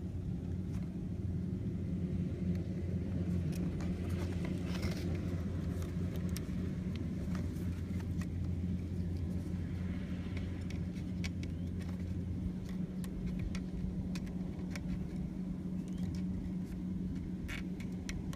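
A steady low motor-like hum, its deeper part dropping away about twelve seconds in, with scattered light clicks as wire is threaded and twisted through a PVC pipe and disc.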